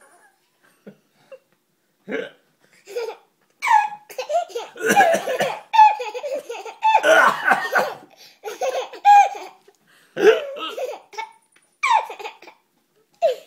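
A man hiccuping, each hiccup answered by a baby's bursts of belly laughter. The laughter comes in spells, the longest and hardest about halfway through.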